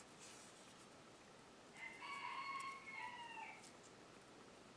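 A single faint drawn-out animal call about two seconds in, held level for nearly two seconds before its pitch drops at the end.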